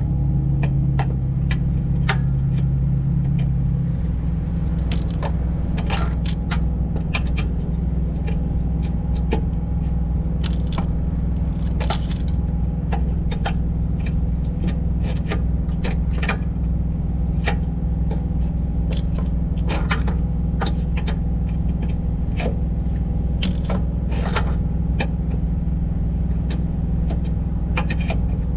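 Hand tools and sockets clinking and scraping on metal in irregular sharp clicks while working the nuts on a truck's air-spring mounting studs, over a steady low engine hum.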